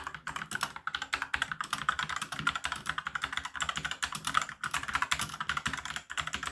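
Rapid typing on a Rampage KB-R90 Orion mechanical keyboard with red linear switches: a fast, continuous stream of keystrokes clacking as the keys bottom out.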